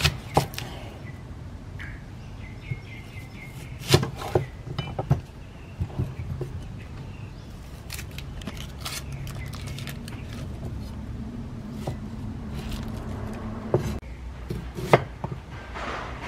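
Cleaver cutting a tomato and then an onion on a wooden chopping board: scattered, irregular sharp knocks as the blade strikes the board, over a steady low hum.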